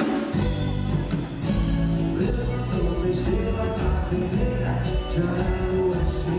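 A band playing acoustic reggae live, recorded on a phone from the audience in a theatre. Acoustic guitars, a bass line and hand drums keep a steady groove, with the bass coming in about a third of a second in.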